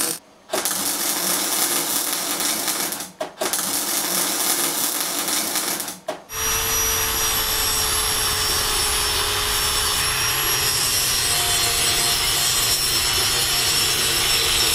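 Arc welding in three short runs of steady crackling hiss, each a few seconds long with brief breaks between them, spot-welding a steel tube. About six seconds in an angle grinder starts and grinds the steel steadily with a high whine.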